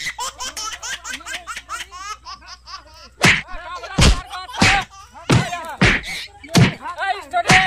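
Shrill vocal cries in quick short bursts. From about three seconds in, louder yells come about twice a second, each with a sharp smack or thud, as a boy is grabbed and held down in a staged scuffle.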